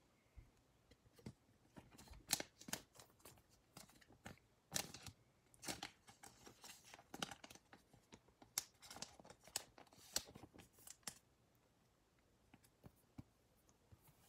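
Thin clear plastic card sleeve crinkling and crackling in the hands as a trading card is slid into it: scattered short, sharp crackles for about eleven seconds, then only a few faint ticks.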